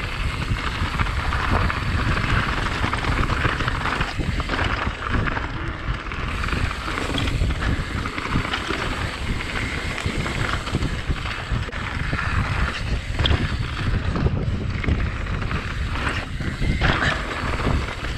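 Wind buffeting the microphone over mountain bike tyres rolling fast on a dirt trail, with frequent short knocks and rattles from the bike over rough ground.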